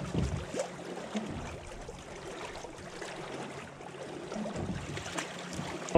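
Water splashing and gurgling along the hulls of a small trimaran sailing on a lake, an even wash with many small irregular splashes.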